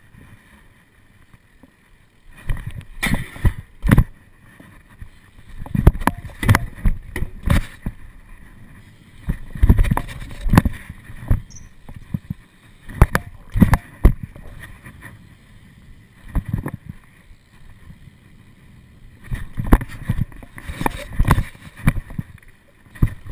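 BMX bike ridden around a concrete skatepark: tyres rolling on concrete with sharp knocks and rattles from the bike, coming in bursts every few seconds after a quiet first two seconds.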